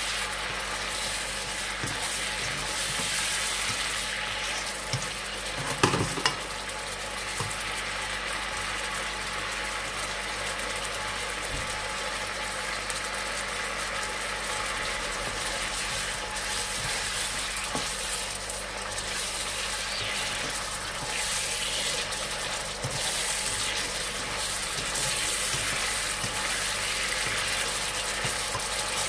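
Chicken pieces sizzling as they fry in a wok, with a spatula stirring and knocking against the pan; one louder knock about six seconds in.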